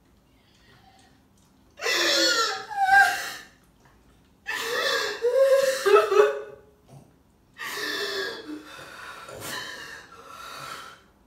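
A woman sobbing in three bouts of gasping, wavering cries, with short quiet breaks between them.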